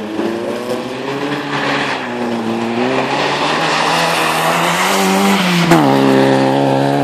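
Rally car engine revving hard as it drives through a bend toward the listener, its pitch climbing and dipping with the throttle and getting louder, then dropping sharply as it passes close by near the end, with tyre noise on the icy gravel.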